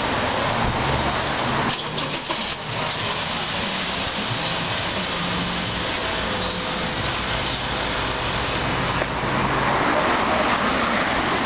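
Outdoor street ambience: a steady rushing noise, with a few brief knocks about two seconds in.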